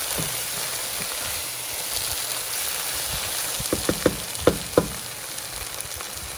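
Tomato paste, tomato sauce and vegetables sizzling in a hot pot, with a few sharp knocks of a spoon against the pot about four seconds in.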